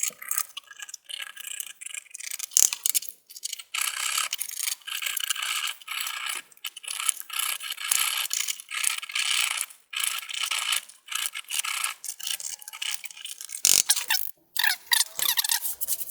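Caked-on dust being scraped off the blades of a computer power supply fan: a run of quick, irregular scraping strokes, with a single knock near the end.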